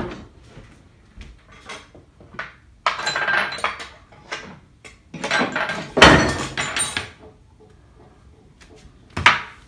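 Kitchen handling clatter: a plastic cutting board and a knife being picked up, carried and set down on a granite countertop, with a sharp knock about six seconds in and a short click near the end.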